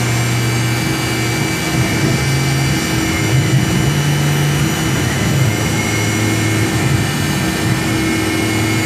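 Tormach CNC mill running with its spindle whining steadily while the 1/4-inch ball end mill moves above the part without cutting, because the tool offset is set wrong. A low motor hum under the whine shifts pitch in steps as the axes move.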